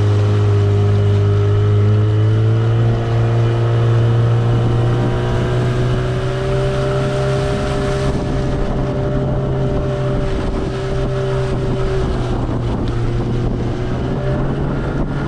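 Boat's outboard motor running steadily under way, with wind buffeting the microphone. The engine's pitch climbs a little a few seconds in and eases down near the end.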